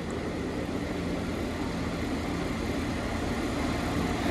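Diesel multiple unit engines idling, a steady low hum with a constant pitch.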